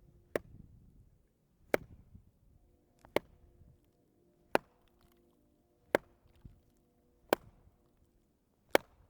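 Wood knocks: a piece of wood struck hard against wood seven times, in a slow, even rhythm about one and a half seconds apart. This is the knocking signal used by Bigfoot hunters, made here to announce leaving.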